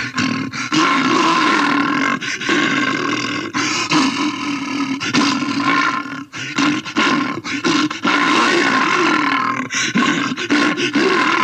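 Bear snarling and growling aggressively in a rough, near-continuous roar, broken by a few brief pauses.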